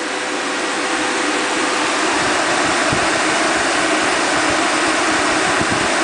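Homemade thermoelectric (peltier) air conditioner running: its fan and water pumps make a steady rushing noise. A faint steady hum fades out about a second and a half in.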